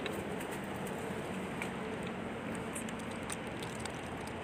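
Leaves and brush rustling close to the microphone, with scattered small ticks and snaps, over a faint steady hum.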